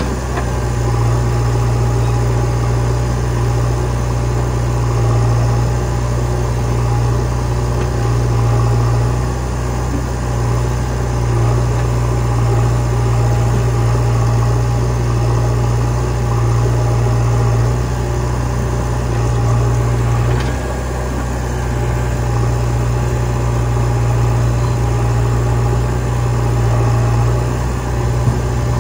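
Diesel engines of a JCB 3DX backhoe loader and a Sonalika 42 DI RX tractor running steadily side by side, a deep even drone.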